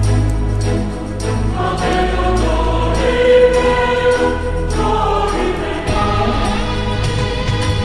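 Background music: a choir singing long held chords over a low bass.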